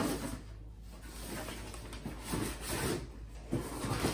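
Handling noise: soft rubbing and scraping of a plastic car side skirt against its cardboard box, with a few quiet knocks.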